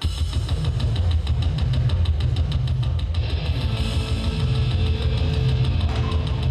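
Heavy rock backing music that cuts in suddenly, with a deep droning low end under a fast, even beat.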